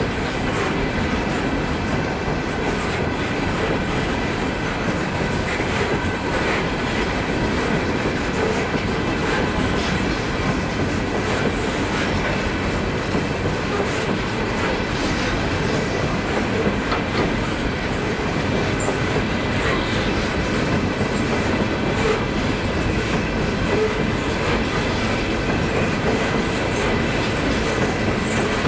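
Norfolk Southern coal gondola cars rolling past: a steady rumble and clatter of steel wheels on the rails, with faint steady high tones above it.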